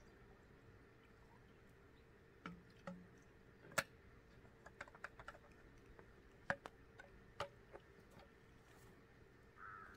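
Sparse, irregular light clicks and taps over a quiet background, the sharpest about four, six and a half and seven and a half seconds in, with a couple of soft knocks near three seconds in.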